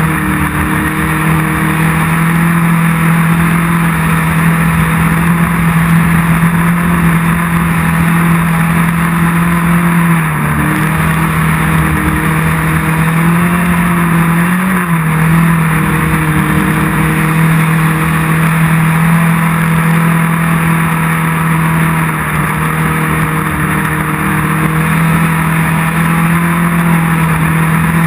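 Off-road race car's engine running at a steady, loud pitch over a constant rushing noise. The pitch dips and wavers briefly about ten to fifteen seconds in, then holds steady again.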